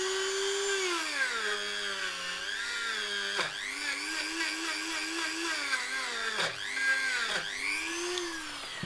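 Dremel rotary tool spinning a stainless steel wire brush against the broken lug of a cast aluminium cylinder head, cleaning it back to bare metal. Its high whine dips in pitch again and again as it bogs under pressure, then picks back up.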